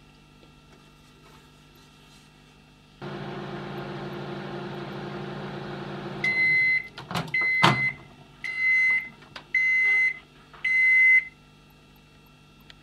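Microwave oven running with a steady hum for about three seconds, then shutting off and beeping five times, about a second apart, to signal the end of its cycle. A sharp click comes between the first and second beeps.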